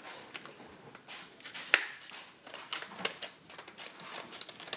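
Hands handling a small plastic camcorder: scattered clicks and light taps, with one sharp click nearly two seconds in.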